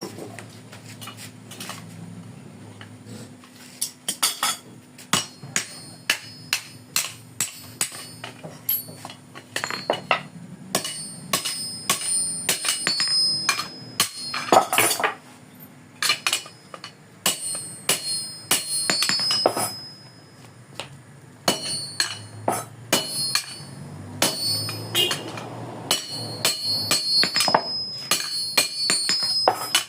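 A hammer striking a metal blade, sharp strikes with a bright metallic ring, coming in uneven runs with short pauses between. The hammering is patching a hole in the blade.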